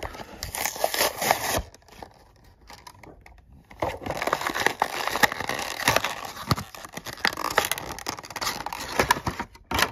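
Clear plastic blister being pried and peeled off a cardboard toy-car backing card: plastic crinkling and card tearing. A short spell at the start, a pause, then a longer stretch of crackling and tearing from about four seconds in.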